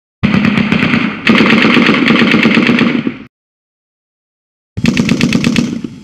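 Two different machine guns exchanging fire: a short burst from one, then a longer burst of about two seconds from the other. After a pause of about a second and a half, a further quick string of loud machine-gun shots starts near the end.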